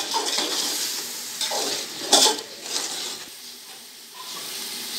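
A slotted spoon stirring and scraping beef, onions and tomatoes frying in oil in a metal pot, over a steady sizzle. It clinks against the pot, most sharply at the start and about two seconds in.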